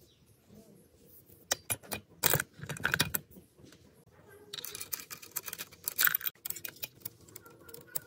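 Steel chainsaw guide bar and saw chain being handled during assembly: a run of sharp metal clinks, then a longer rattle of chain links about halfway through.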